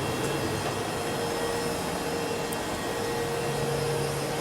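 Steady machinery and air-circulation noise inside a module of the International Space Station: an even whooshing hum with a constant mid-pitched tone and a lower hum that grows stronger near the end.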